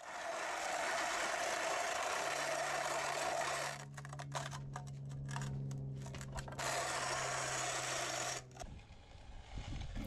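Walking edger scraping along the edge of wet concrete and the old slab: a steady scrape that turns choppy for a couple of seconds midway, then runs on and fades. A steady low hum runs underneath from about two seconds in until shortly before the end.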